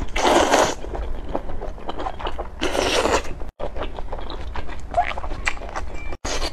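Wide Sichuan noodles slurped from chopsticks in two long sucks, the second about two and a half seconds in, with chewing and many small mouth clicks between and after.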